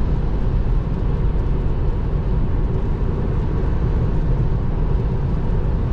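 Steady road and tyre noise from a Tesla Model 3 driving on a wet highway, heard inside the cabin.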